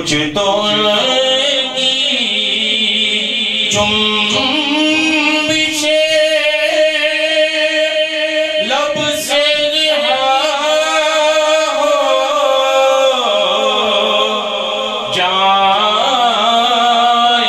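A man singing a naat, an Urdu devotional poem, in long, ornamented held notes.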